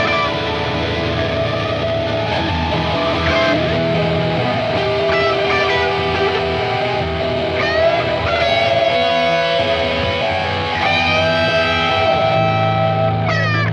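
Electric guitar music with long held, layered notes and a few sliding pitches.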